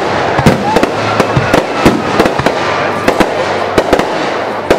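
Aerial fireworks going off: a rapid, irregular series of sharp bangs and crackles, several a second, over a steady din.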